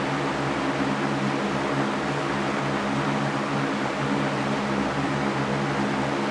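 Steady sleep white noise: a constant, even rushing hiss with a low hum underneath.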